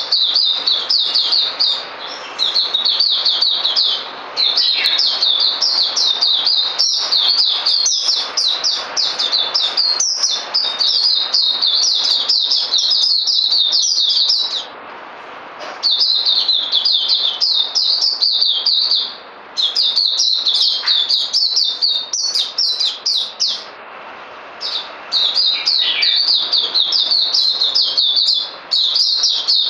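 White-eye (mata puteh) singing: long runs of rapid, high chirping notes, broken by a few brief pauses.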